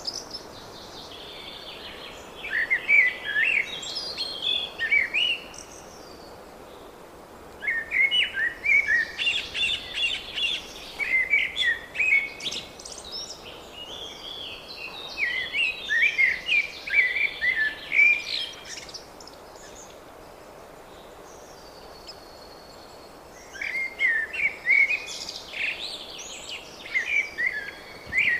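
Songbirds singing in spring: about six short, bright song phrases of two to three seconds each, with pauses between them, over a faint steady background.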